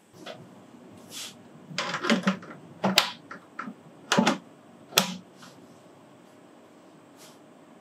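Metal clicks and clacks of a Sugatsune LAMP concealed cabinet hinge being clipped onto its mounting plate: the arm is hooked on at the front, then pushed in at the back until it snaps into place. A cluster of sharp clicks, the loudest about three and five seconds in.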